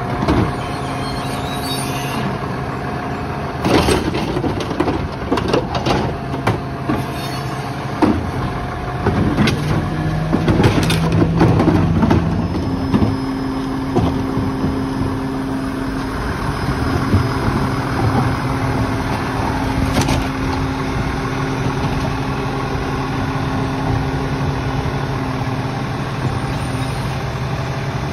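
Lodal split-body garbage truck's diesel engine running steadily, speeding up briefly about ten seconds in. A steady whine joins in from about halfway to near the end, and scattered clanks and knocks sound over the engine.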